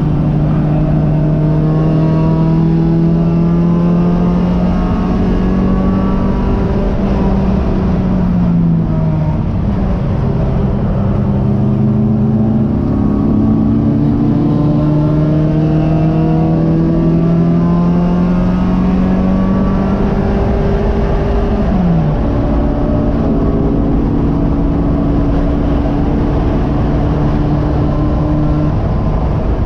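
Race car engine heard from inside the cockpit, pulling hard with its pitch climbing slowly. The pitch falls sharply twice, about 9 and 22 seconds in, then holds steady.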